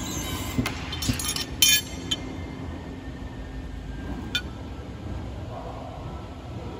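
EHRT busbar bending machine bending a copper busbar: a steady low machine hum runs for about four seconds, with a few sharp metallic clicks and clinks. The loudest, ringing clink comes about a second and a half in, and a last single click follows just after four seconds.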